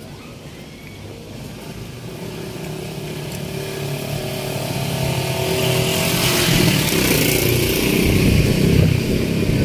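A motor vehicle's engine grows steadily louder, becoming loudest in the second half with a hiss over it, as the vehicle draws near.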